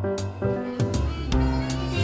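Background music with a steady beat and held instrument notes.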